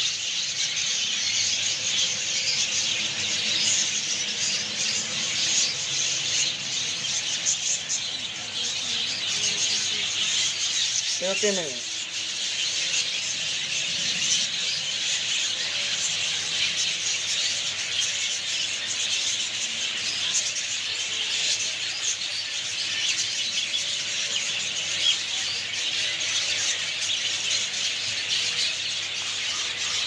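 Lovebird chicks squealing and chirping, high-pitched, dense and continuous, as they are fed formula from a syringe. About eleven seconds in there is one short lower call that rises and falls in pitch.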